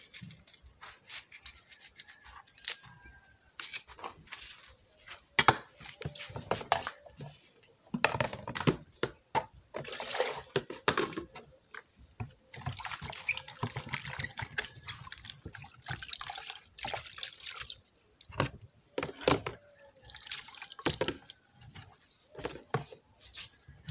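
Water splashing and dripping while food is handled in a container, with irregular clicks and knocks from kitchenware.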